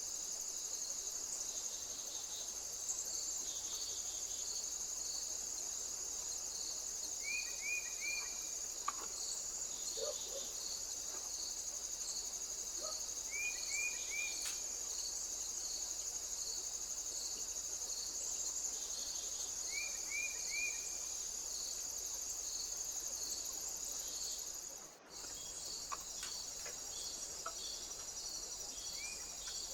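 Insects chirring steadily in a high, evenly pulsing chorus. A short three-note chirp comes three times, about six seconds apart. The sound cuts out for a moment near the end.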